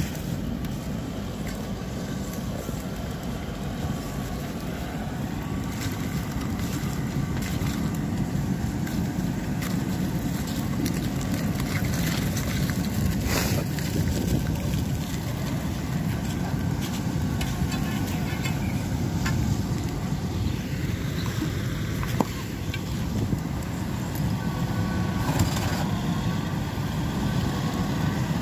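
Heavy trucks' diesel engines running at a distance, a steady low rumble, with a couple of short knocks.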